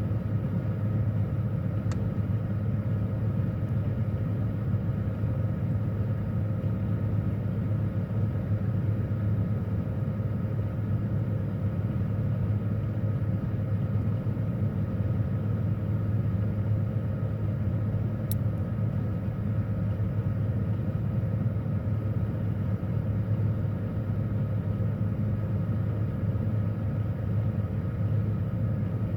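Refrigerator compressor and fan humming steadily, heard from inside the closed fridge, with a faint click about two-thirds of the way through.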